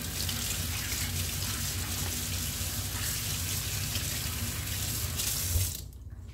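Kitchen sink faucet running in a steady stream while hands are washed under it. A short knock sounds near the end, and the water stops abruptly just after.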